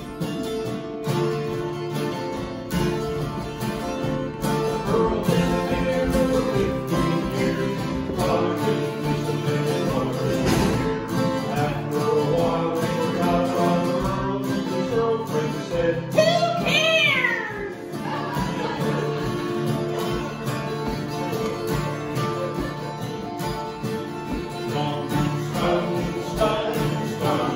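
Acoustic guitars strummed in a country-style song with singing. A little past halfway a brief high swooping sound rises over the music.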